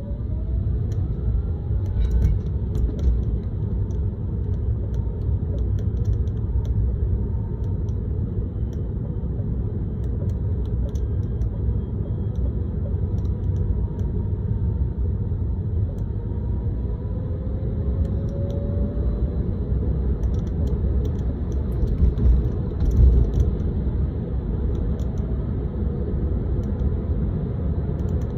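Tesla Model 3 being driven, heard from inside the cabin: steady road and tyre rumble, with light rattling clicks coming and going, most of them a couple of seconds in and again near the end. Faint gliding whines rise and fall now and then.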